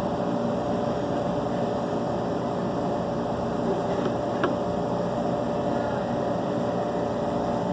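A steady mechanical hum with several fixed tones, unchanging throughout, and one faint short tick about four and a half seconds in.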